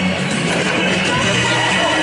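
A recorded song playing at a steady loudness, with sustained bass notes that change every half second or so.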